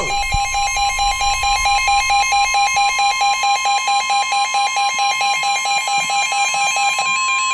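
NOAA Weather Radio receiver sounding a warning alert: the steady high 1050 Hz warning tone, with rapid electronic beeping layered over it. The beeping stops shortly before the end while the tone carries on. It is the signal that a warning broadcast, here a severe thunderstorm warning, is about to be read.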